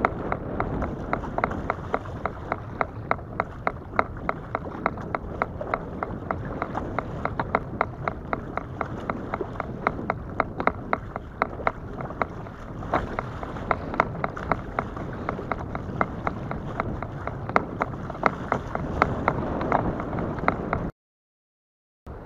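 A pedal-driven fishing kayak under way: the pedal drive clicks steadily a few times a second over the wash of water and wind on the hull. The sound cuts off suddenly about a second before the end.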